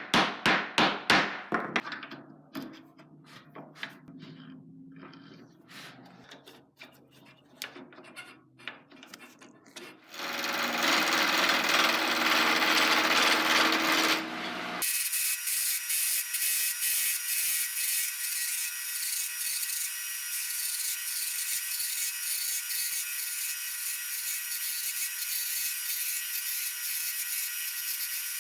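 Woodworking on a small wooden part: fast repeated hand-tool strokes on wood at first. About ten seconds in, a power tool starts running steadily. A few seconds later its sound turns thinner and higher, with an even ticking.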